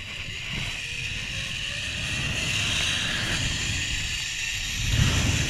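Zipline trolley pulleys running along the steel cable: a steady whirring hiss that grows gradually louder as the rider picks up speed, with low wind rumble on the microphone building near the end.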